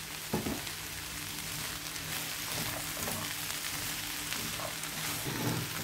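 Red kidney beans and chopped vegetables sizzling steadily in a frying pan while a spatula stirs through them, with a couple of soft knocks against the pan.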